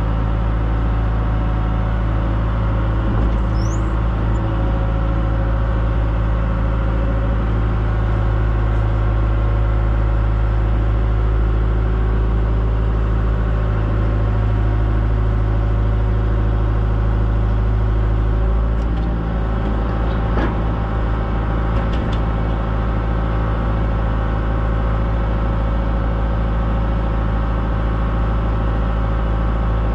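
Diesel engine of a 120-class excavator running steadily. It drops a little in level a little past halfway, and a few light knocks come around twenty seconds in.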